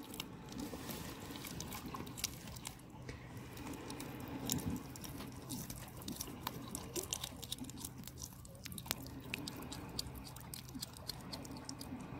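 American mink chewing and biting into a raw mackerel: many small, irregular clicks and crunches.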